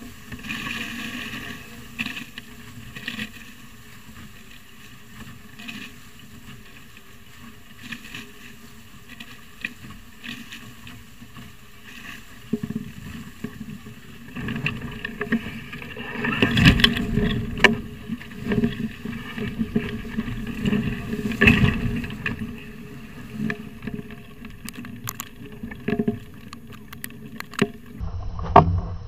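Water rushing and splashing along the hulls of a Spitfire sailing catamaran moving fast through choppy water, with wind on the microphone. Louder splashes and hull slaps come in bunches through the second half.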